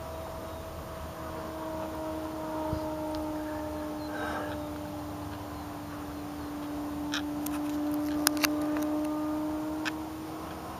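Rimfire 80 brushless electric motor and propeller of an RC Waco biplane droning steadily in flight, one even tone that swells a little about three-quarters of the way through. A few sharp clicks come in the last few seconds.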